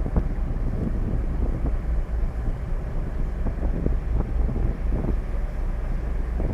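Steady low rumble of a boat's engines under way, with wind buffeting the microphone.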